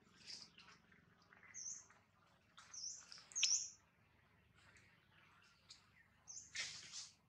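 Small birds chirping faintly in short, high calls, the loudest a sharp chirp about three and a half seconds in, with a brief rustle near the end.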